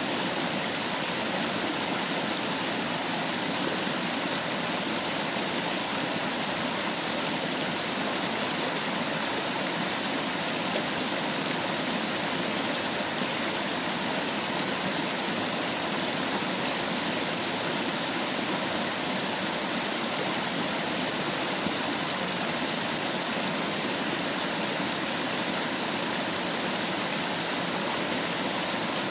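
Steady rush of running water from a stream and waterfall, an even hiss with no breaks or changes.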